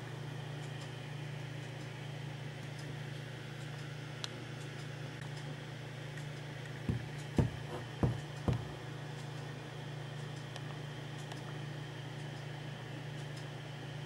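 Steady low hum with light hiss, broken by four dull thumps in quick succession a little past halfway.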